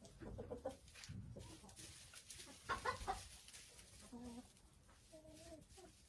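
Wyandotte chickens clucking quietly: scattered short clucks, briefly louder about halfway through, then a short low call and a brief wavering call near the end.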